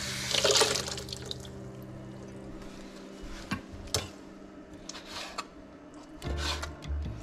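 Water splashing and dripping into a stainless bowl in a kitchen sink about half a second in. Near the end, a knife cuts on a plastic cutting board.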